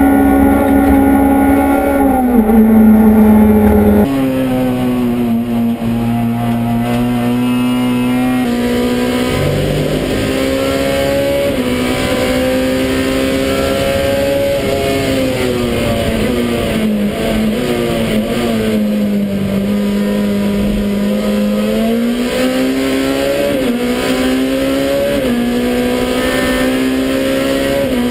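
Touring race car engine heard from inside the cabin at racing speed. Its pitch climbs through the gears and drops sharply at each upshift, falls away under braking midway, then builds again. About four seconds in, the sound cuts to a second car's onboard engine, a little quieter.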